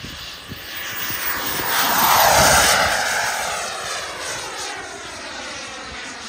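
JetMunt 210 turbine of a Tomahawk XXL L-39 Albatros model jet on a low fast pass: its whine swells to a peak about two seconds in, then drops in pitch and fades as the jet passes and climbs away.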